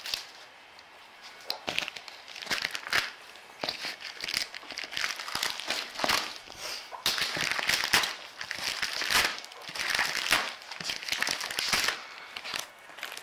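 Plastic wrap around a cardboard box crinkling and tearing as it is cut and pulled open with metal snips, with sharp clicks here and there.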